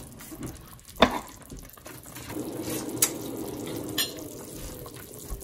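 Chicken pieces in spiced broth bubbling gently at a simmer in an enamelled braising pan, with a sharp knock about a second in and two lighter clicks around three and four seconds in.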